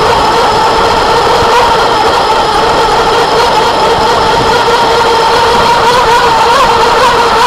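Onboard sound of a Claymore 50 F1 RC tunnel-hull boat under way: its motor runs at a steady, high, even pitch, wavering slightly near the end, over the rush of water and air past the hull.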